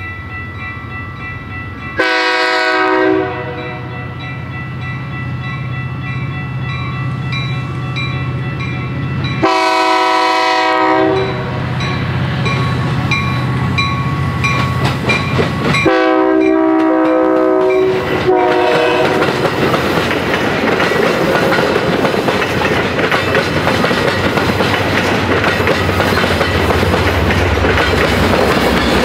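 Metra commuter train sounding its horn in three long blasts as it approaches cab car first, with a bell ringing between the blasts. It then rolls past with loud wheel and rail noise, its diesel locomotive pushing at the rear.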